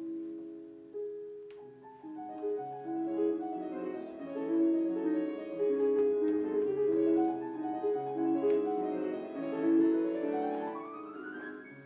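Background piano music playing held, overlapping notes, with a quick rising run of notes near the end.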